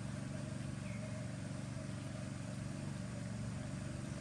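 An engine running steadily at an even idle, a low drone with a rapid pulse. A faint short chirp about a second in.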